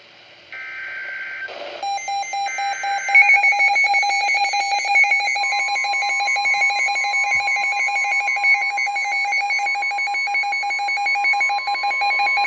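Emergency alert broadcast tones: the last two buzzy digital SAME header bursts, then a rapid, pulsing electronic alarm beep. About five seconds in, the steady 1050 Hz Weather Radio warning tone joins the beeping. Together they signal the start of a new alert, here a Severe Thunderstorm Warning.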